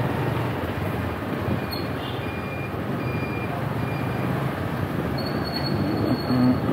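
Motorcycle engine running at low speed through slow street traffic, a steady hum under road and wind noise, with a brief louder tone near the end.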